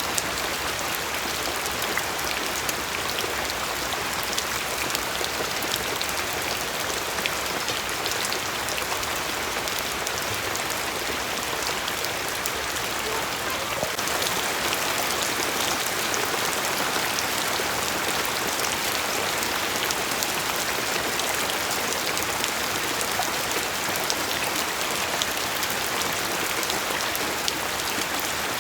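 Steady rain falling, with many individual drops pattering on a surface; it grows slightly louder about halfway through.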